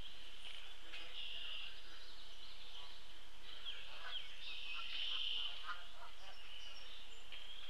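Outdoor bird chorus: several wild birds calling and singing over one another, with a constant high-pitched background and a cluster of short chirps and sliding notes in the middle.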